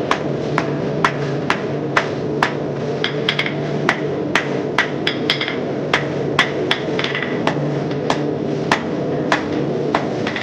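Hand hammer forging a hot mild steel round bar on an anvil: steady blows about two a second, some with a brief metallic ring, over a steady low hum.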